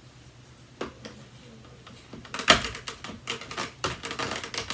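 Plastic vacuum hoses and their fittings being handled: a single click, then from about halfway a rapid run of sharp clicks and clatter.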